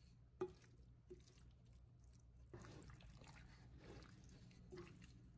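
Faint, soft squelching of a wooden spoon stirring thick, yogurt-marinated beef chunks in an enamelled pot, with one light knock about half a second in.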